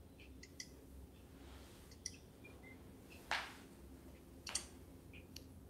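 Quiet movement of a person getting up from a floor mat: faint clothing and mat rustles with a few soft clicks, and two brief swishes, the louder one about three seconds in and another about a second later.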